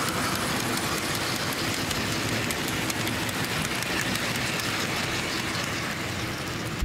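OO gauge model freight wagons rolling past on the track, a steady rolling noise of small metal wheels on rail. It eases off a little near the end as the last wagon goes by.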